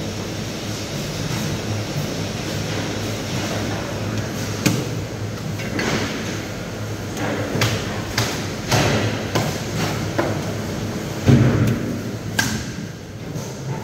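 Irregular knocks and thuds of fish being handled on a thick wooden chopping block, starting about a third of the way in, with the loudest knock near the end, over a steady background hum.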